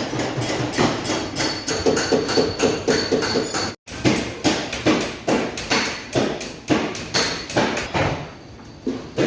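Paintless dent repair: quick hammer taps on a car's body panel, working down a dent, about two or three a second, with a brief break near four seconds in.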